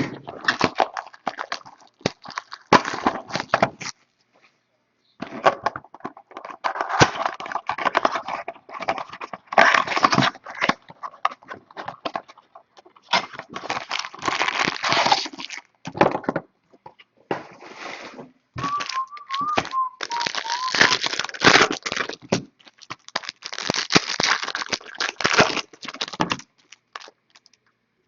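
Trading card packs and cards being handled: wrappers crinkling and tearing, with cards rustling and sliding in irregular bursts and short pauses.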